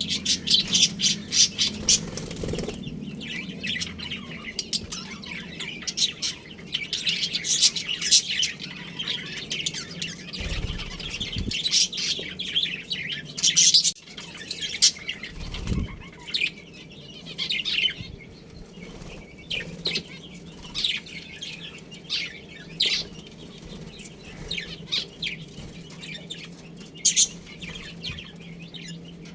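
A colony of budgerigars chattering and chirping, with rapid overlapping short calls that thin out to scattered chirps in the second half. A steady low hum runs underneath, and there are a few low thumps near the middle.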